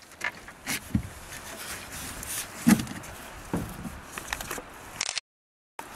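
Scattered knocks, bumps and rubbing on the floor of an aluminium fishing boat as a man moves about and handles gear beside a netted fish. The loudest knock comes a little under halfway through, and the sound drops out completely for about half a second near the end.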